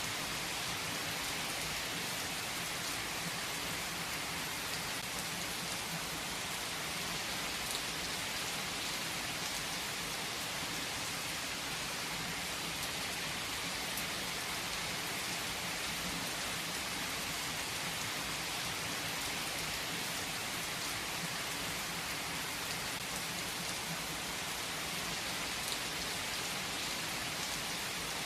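Steady rain falling and pattering on a surface, an even hiss with a few faint drop ticks.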